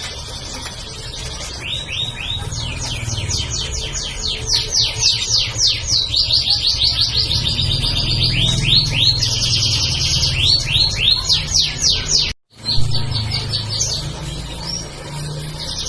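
Domestic canary singing a long, continuous song of fast trills and rapid runs of repeated sweeping notes. The sound cuts out completely for a moment about twelve seconds in.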